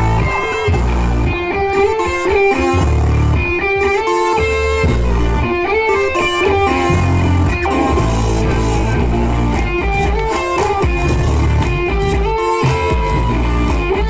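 Background music led by guitar, with repeated bass notes underneath.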